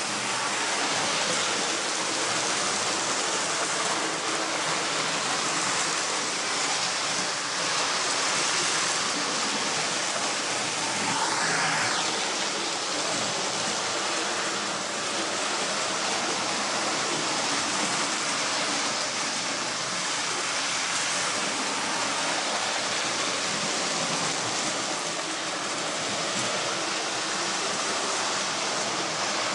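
Model trains running round a layout's track, a steady whirring rolling noise with no pauses, and a brief higher sound about eleven seconds in.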